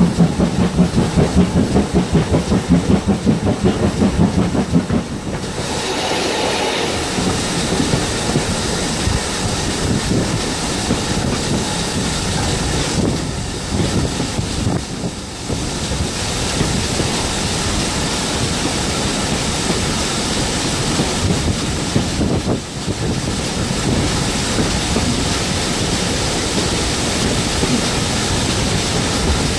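GWR 56xx class 0-6-2 tank engine working a train, its exhaust beating loud and rhythmic for the first five seconds or so. The beats then give way to a steady noise of carriage wheels on the rails and air rushing past the open window.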